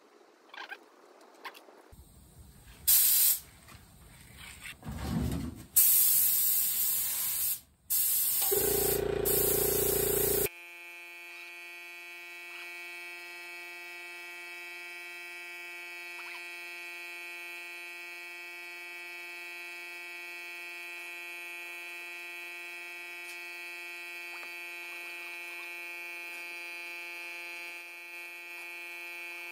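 Air spray gun spraying surfacer primer in hissing bursts: a short one, then two longer ones several seconds long. From about ten seconds in, a steady electric buzz with many overtones takes over.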